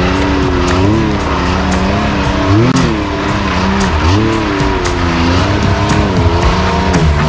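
Can-Am Maverick X3 side-by-side's engine revving in repeated bursts as it crawls up a rock ledge under load, pitch rising and falling about once a second, with one sharper rev about halfway through.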